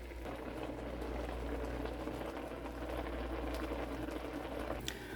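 Ground chicken cooking in water in a pot over a medium flame, simmering with a steady, soft bubbling. A single light click sounds just before the end.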